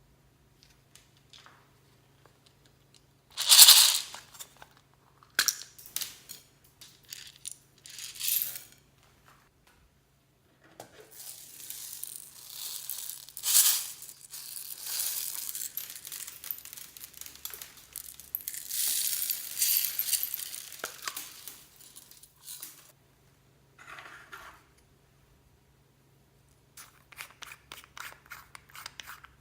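Clear slime mixed with beads and floam being squished and stretched by hand, giving bursts of crackling and popping. The loudest burst comes about three and a half seconds in, a long run of crackling fills the middle, and quick clicky pops come near the end.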